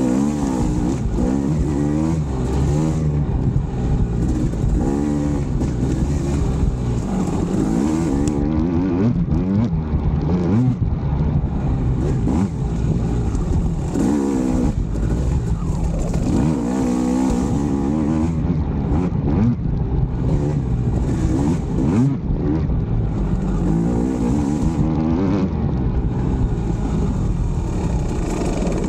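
2020 KTM 300 XC two-stroke dirt bike engine, running on a throttle-body-injection conversion, revving up and down repeatedly as it is ridden, its pitch climbing and dropping every few seconds as it pulls through the gears into third and fourth.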